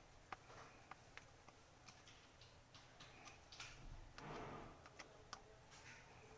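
Near silence broken by faint, irregular clicks and taps, with a short soft scrape about four seconds in.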